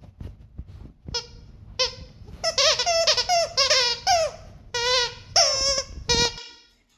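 A dog chewing a plush squeaky toy, setting off a rapid run of about a dozen loud squeaks, several long and wavering in pitch.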